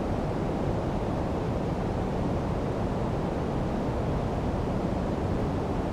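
Steady low rushing noise of wind on the microphone and ocean surf, with no distinct events.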